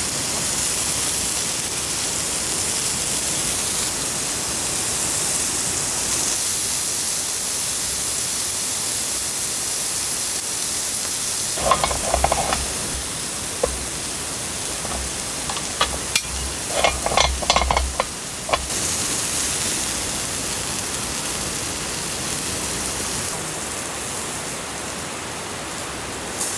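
Pieces of beef sizzling on a ribbed grill plate, a steady hiss. Bouts of clinking and knocking, about twelve seconds in and again around seventeen seconds, as the meat is handled on the plate.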